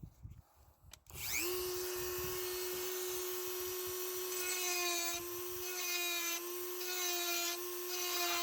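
Small high-speed electric power tool, such as a drill or rotary tool, starting about a second in with a rising whine, then running steadily at one pitch, its tone changing slightly now and then.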